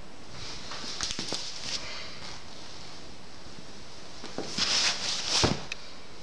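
Handling noise from a handheld camera: two spells of rustling with a few sharp clicks and knocks, about half a second in and again from about four and a half seconds, the second spell louder, over a steady hiss.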